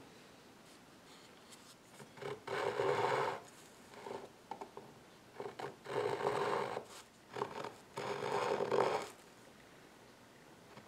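Hand saw crosscutting a round wooden rail blank, back-and-forth rasping strokes in three main runs with a few short strokes between. The sawing starts about two seconds in and stops a couple of seconds before the end.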